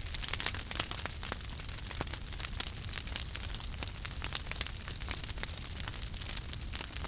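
Wood fire crackling: quick, irregular pops and snaps over a steady hiss and a low rumble of flames.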